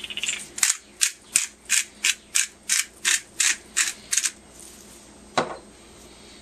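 Pepper grinder being twisted to grind black peppercorns: about a dozen crisp, ratcheting grinding strokes at roughly three a second, stopping after about four seconds. A single short knock follows about five seconds in.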